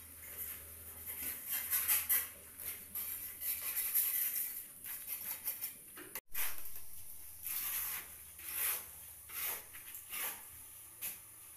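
Irregular scrapes, clinks and shuffles of hand work with mortar and a bucket, with a brief dropout about six seconds in.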